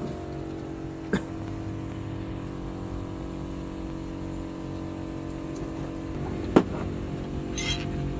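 Steady mechanical hum of a running machine in the workshop. Two sharp clicks of metal parts or tools, one about a second in and a louder one near the end, followed by a brief hiss.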